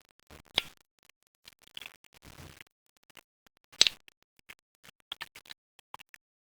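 Clicks and scrapes of a disassembled desoldering pump's parts and spring being handled, with two sharper clicks about half a second in and just before four seconds.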